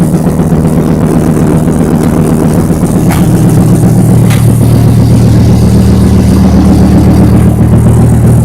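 Dodge Viper RT/10's 8.0-litre V10 running at a steady idle, just after being coaxed into starting in cold weather.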